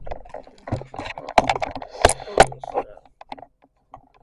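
Rustling and a few sharp knocks of things being handled close to the microphone, the loudest knocks about halfway through.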